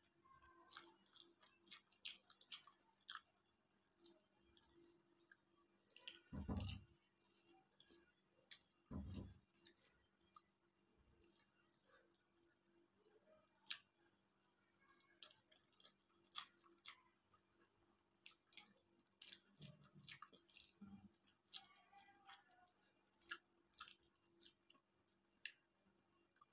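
Close-up eating sounds from a person eating rice and curry by hand: soft chewing and many small wet mouth clicks, with two dull low thumps about six and nine seconds in.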